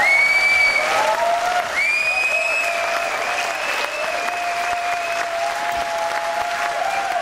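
A large audience applauding: dense, steady clapping from a packed hall. Long steady high tones sound over the clapping.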